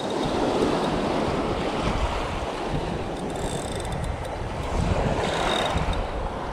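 Small waves washing onto a sandy beach, with wind buffeting the microphone. The wash swells twice, about half a second in and again about five seconds in.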